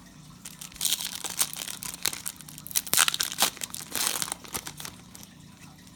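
A Prizm trading-card pack's foil wrapper being torn open and crinkled: a run of crackling, rustling bursts with sharp clicks, loudest from about one to four and a half seconds in.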